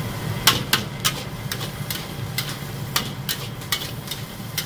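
Metal spatula scraping and clanking against a steel wok as fried rice is stirred and tossed, in irregular strokes about two or three a second, over a steady low roar from the gas burner.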